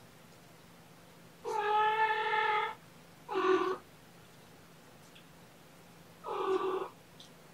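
A domestic cat meowing three times: a long meow about a second and a half in, a short one right after it, and another near the end.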